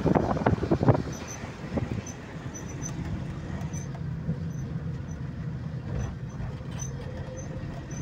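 A vehicle driving along a road, heard from inside the cabin. Loud gusts of wind hit the microphone for about the first second, then the sound settles into a steady low rumble from the engine and tyres.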